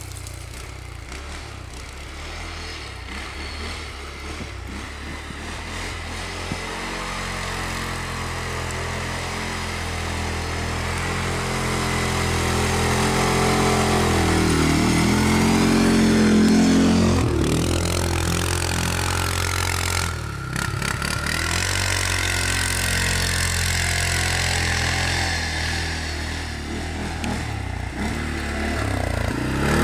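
Quad bike engine running as the ATV works up a snowy track toward the microphone. It grows louder to a peak about halfway through, where its pitch dips and climbs again as it passes close, then falls back. It swells once more near the end.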